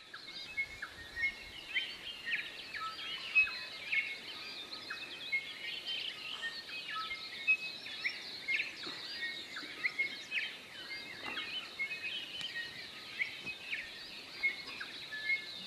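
Dawn-chorus-like mix of many birds calling and singing at once: a dense run of short chirps, whistles and quick pitch slides, with no machinery running.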